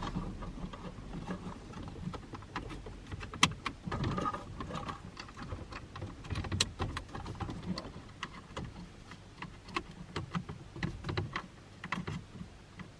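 Scattered light clicks and rattles of plastic dashboard trim and wiring connectors being handled and plugged in.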